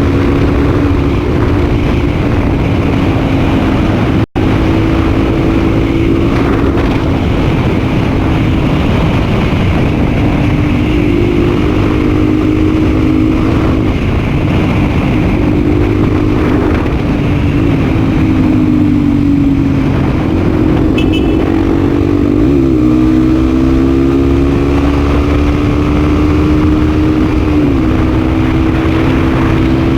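Honda Tornado 250's single-cylinder four-stroke engine running loud under way, its pitch climbing slowly and then dropping several times as the rider works through the revs and gears. The sound cuts out briefly about four seconds in.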